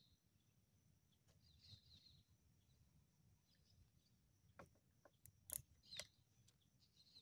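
Near silence: faint mangrove ambience with a thin steady high tone and a couple of faint bird chirps in the first two seconds. A few soft clicks come about two-thirds of the way in.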